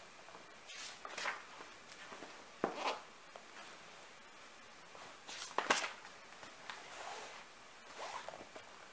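A hand-held storybook being handled, its paper pages making several short rustling swishes, the loudest about five and a half seconds in.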